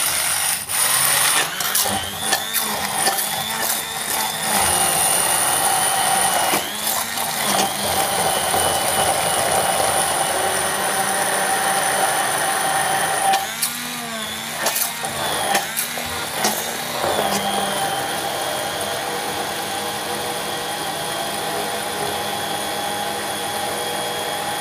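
Electric hand blender running in a stainless steel pot, blending curd, mango and sugar into mango lassi. Its motor whine sags in pitch and recovers a few times, most of all near the middle.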